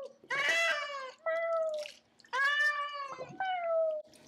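Persian cat yowling in distress at being bathed: four long meows in a row, the last one sliding down in pitch.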